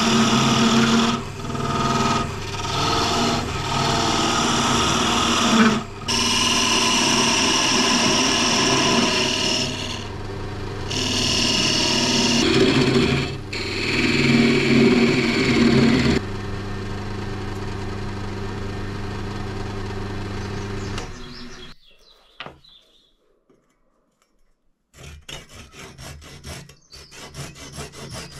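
Wood lathe motor running with a steady hum while a narrow chisel scrapes and cuts into the spinning wood to part off a small turned piece. The cutting stops about 16 s in, the lathe runs on by itself, then winds down and stops about 22 s in. Near the end a knife saws back and forth through the leftover wood nub in quick short strokes.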